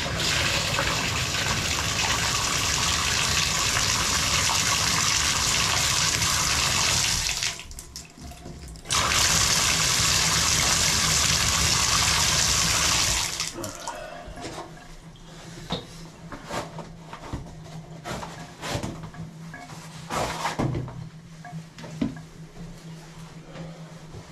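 Water running hard from a bathtub tap, stopping for about a second and a half around seven seconds in, then running again until about thirteen seconds in. After that come quieter, uneven water sounds and scattered clicks over a steady low hum.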